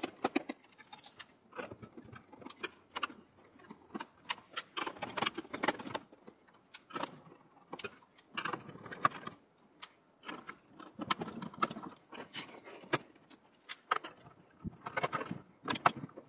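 Motherboard screws being undone with a screwdriver inside a steel PC case: irregular small metallic clicks and scrapes.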